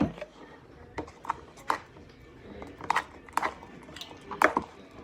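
Spoon stirring glue slime in a bowl as it thickens with the activator, in short irregular strokes about one or two a second. The slime is getting stiff and hard to mix.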